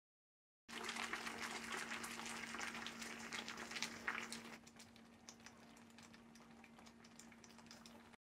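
Syrup with sliced chayote simmering in a frying pan, bubbling and crackling faintly over a steady low hum. The bubbling drops to a softer level about halfway through.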